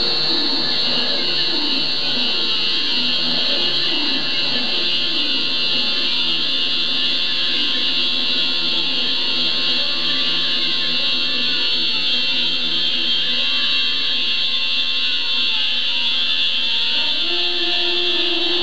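Experimental noise music: a steady, harsh high-pitched buzz, with lower tones stepping up and down in pitch beneath it.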